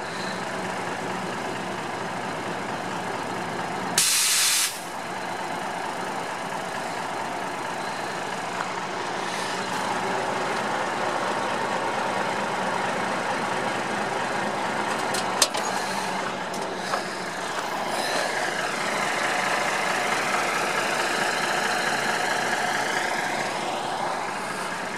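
Ford L8000 rollback truck's 7.8-litre turbo diesel running steadily. About four seconds in comes a sharp hiss of compressed air, lasting under a second, from the truck's air system. Later the running gets louder, with a whine that rises and falls near the end.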